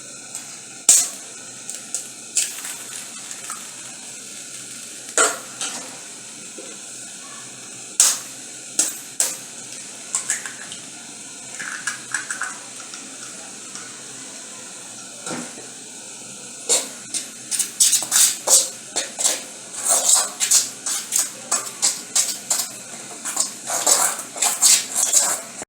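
Kitchen utensil knocking against a bowl: a few scattered knocks, then from about two-thirds of the way through a fast run of clicks, about three or four a second, as flour and eggs are beaten together.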